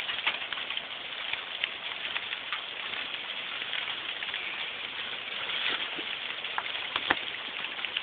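Hail and rain falling: a steady hiss with scattered sharp ticks of hailstones striking.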